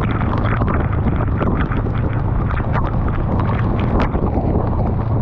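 Wind buffeting the microphone on a Honda Rebel 500 ridden in heavy rain, over the steady drone of its parallel-twin engine, with many short ticks of raindrops. A stronger splash comes about four seconds in, as spray from an oncoming car hits.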